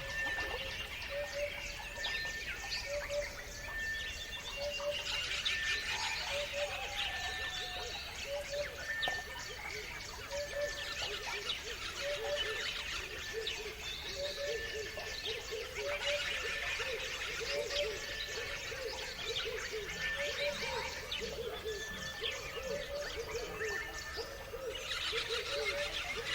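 A dawn-type chorus of several songbirds chirping and trilling together, over a low two-note call repeating about once a second and a short high whistle recurring at about the same pace.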